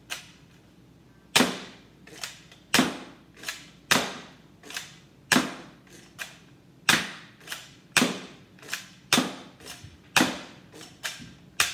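Nerf Elite 2.0 spring-powered dart blaster being primed and fired again and again: a string of sharp plastic clacks and pops, one every half second to second.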